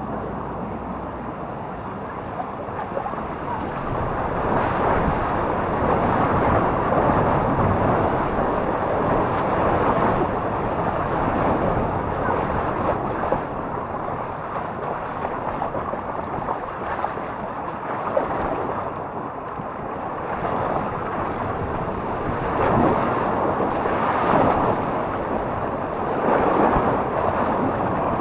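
Water running and splashing along a tube rapids water slide as the raft tube rides down the channel, with wind buffeting the microphone. The noise swells louder in several surges.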